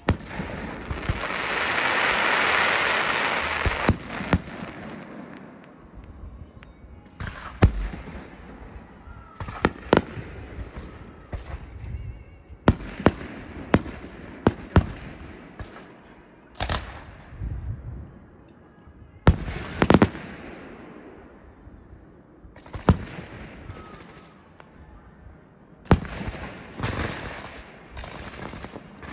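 Fireworks show: aerial shells bursting in sharp bangs, often a second or two apart. A loud hissing crackle fills the first few seconds, and crackling picks up again near the end.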